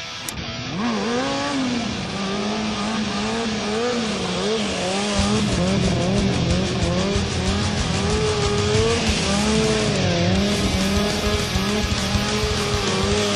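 Stunt sportbike sliding through drifts and circles, its Avon Viper Sport rear tire squealing with a wavering pitch over the engine running under throttle.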